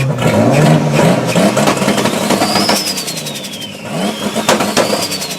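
Turbocharged car engine revving, its turbo whistle rising and then falling off twice as the throttle closes. Each fall comes with a rapid fluttering chatter: turbo flutter, the compressor surging with no blow-off valve.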